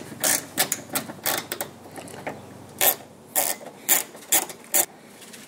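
Small hand ratchet clicking in short bursts as a bolt is worked loose, the sharpest clicks coming about twice a second in the second half.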